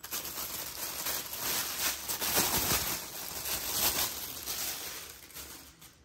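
Thin clear plastic bag crinkling and rustling as printed instruction leaflets are pulled out of it, dying away near the end.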